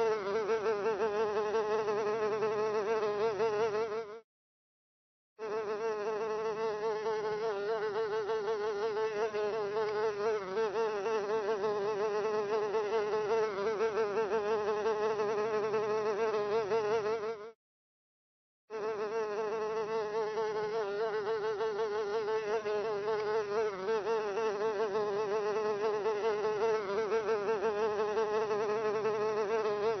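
A fly buzzing in a steady, slightly wavering drone. It cuts off completely twice for about a second, once about four seconds in and again a little after halfway, then starts again.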